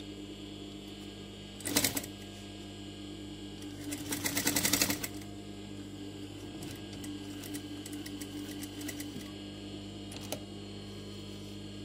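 Sewing machine stitching slowly in short runs: a brief burst of needle strokes about two seconds in, then a longer, louder run of rapid strokes around four to five seconds, then a few faint ticks, over a steady electric hum.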